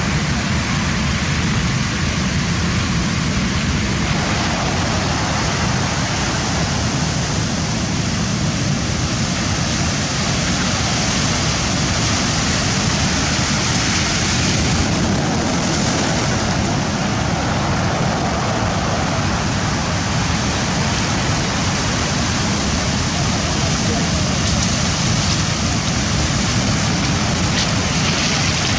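Surf of a rough sea: waves breaking and washing, a steady rush of noise.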